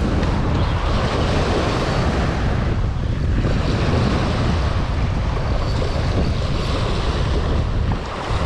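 Wind buffeting the microphone of a chest-mounted action camera, with small surf washing up the beach. A steady, loud rush, heaviest in the low end.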